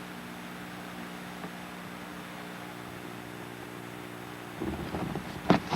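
A steady low hum made of several even tones, then, about four and a half seconds in, a short spell of rustling and knocking that ends in one sharp loud knock.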